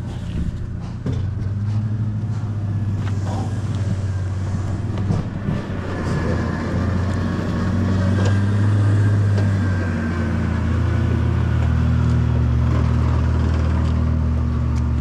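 A heavy vehicle's engine idling steadily, a deep even hum with a faint whine above it, and a few light knocks.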